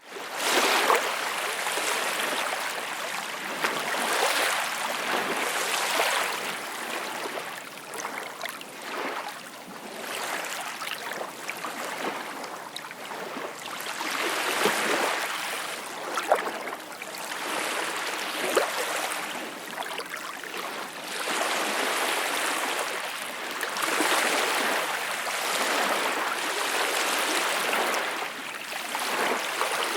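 Small waves lapping and washing in and out, rising and falling in soft surges every few seconds, with a few brief splashes.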